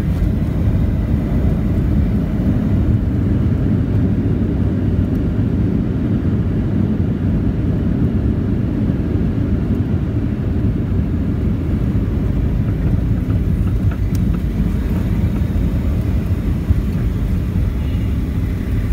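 Cabin noise of a Boeing 737 rolling down the runway just after touchdown: a steady low rumble, heard from inside the cabin.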